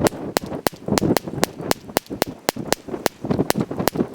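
Taurus TX 22 .22 LR semi-automatic pistol firing Winchester white box ammunition in rapid succession: a quick string of sharp cracks, about four shots a second. Each round cycles the pistol without a stoppage.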